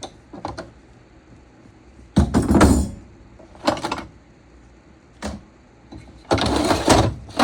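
Metal hand tools clattering and knocking as they are lifted out of a toolbox and set down. Two louder clatters come about two seconds in and near the end, with lighter knocks between them.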